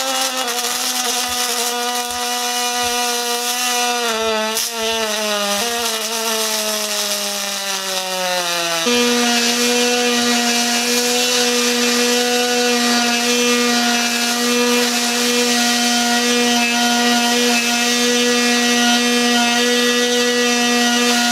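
Pulsed MIG welding arc on aluminum from an HTP ProPulse 200, giving a steady pitched buzz. The pitch sinks slowly over roughly the first nine seconds, then steps back up and holds steady.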